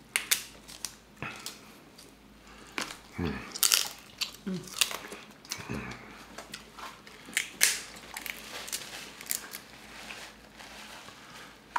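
Close-miked eating of a seafood boil: crab leg shells cracking and snapping, with chewing and lip smacks, in sharp irregular clicks. A few short hums from the eaters come in between.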